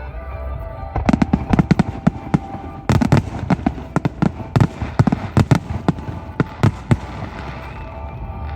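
Rapid volley of aerial firework bursts: dozens of sharp bangs, closely spaced, from about a second in until near the end, with music playing underneath.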